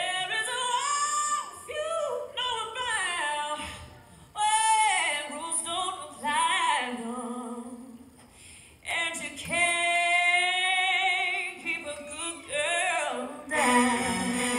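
A woman singing alone without accompaniment, in phrases of long held notes with vibrato, the opening of the song for the dance routine. Near the end the instruments come in under her voice.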